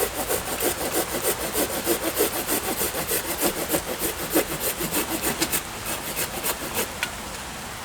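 Small folding bushcraft saw with a short blade and large teeth cutting through a green branch in quick, even back-and-forth strokes, which stop about seven seconds in.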